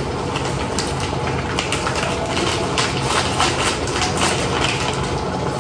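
Lumpia shanghai frying in hot oil: a steady sizzle with irregular crackles and pops, over a steady low hum.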